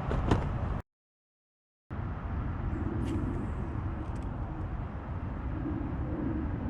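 Steady low rumbling outdoor noise with a few faint clicks, cut off to dead silence for about a second shortly after the start.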